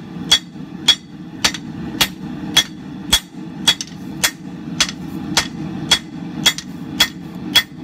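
Rounding hammer striking red-hot steel on an anvil in an even rhythm, about two blows a second, each with a short metallic ring, over a steady low rumble. The smith is drawing out the steel into a taper.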